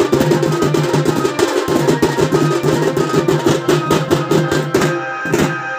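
Folk drum band playing a fast rhythm: stick-beaten side drums and barrel drums struck in quick strokes, over steady held tones from a melodic instrument.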